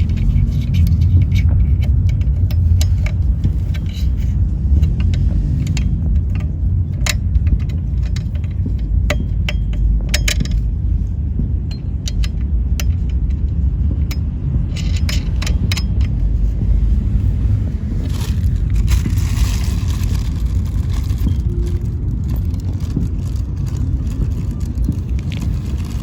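Scattered clicks, light metallic jingling and scrapes of boat-seat mounting hardware being handled and fitted, over a steady low rumble.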